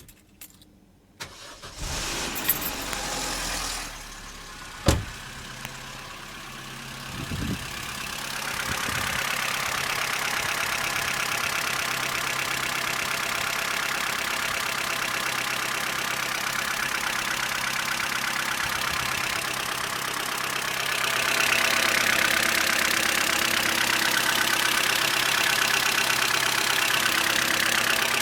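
Vauxhall Corsa C's 1.4 Z14XEP four-cylinder petrol engine being started and then running at idle with a fast, steady rattling noise, louder about three-quarters of the way through. The owner suspects the noise is a worn timing chain.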